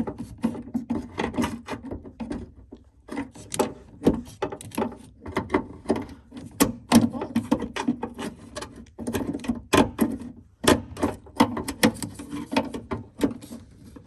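Quick, irregular metallic clicks and knocks as a screwdriver prods and levers at the stuck rear-door latch mechanism of a 2009 Nissan Cube, which is not releasing. The clicking stops briefly twice, once a few seconds in and again about two-thirds through.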